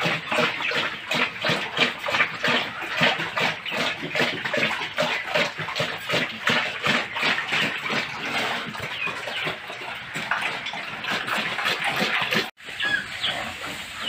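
Pigs eating wet feed from a tyre trough: rapid, continuous wet chomping and slurping. It breaks off abruptly about twelve and a half seconds in, after which a few short bird chirps are heard.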